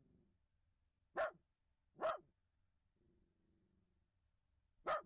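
Kaninchen (rabbit-size) long-haired dachshund barking loudly: three short, sharp single barks, about a second in, about two seconds in and near the end.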